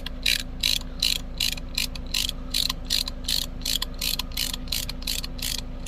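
Ratcheting brake caliper piston compressor clicking as its handle is worked back and forth, about three clicks a second. It is spreading against the caliper to push the piston back so the new brake pads fit.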